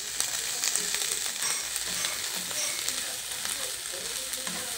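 Yardlong beans, tofu, onion and bell pepper sizzling steadily in hot oil in a wok as they are stirred, with many small crackles and clicks.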